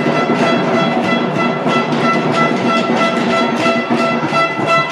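Music: a held, high pitched note over a steady beat.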